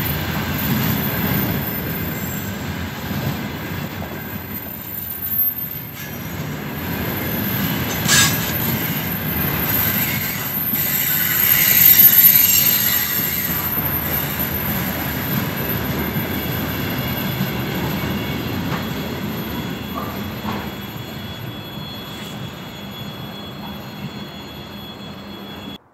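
Container freight train of loaded flatcars rolling past at close range, wheels rumbling on the rails with a steady high-pitched wheel squeal. It is loudest about halfway through, then fades as the end of the train goes by.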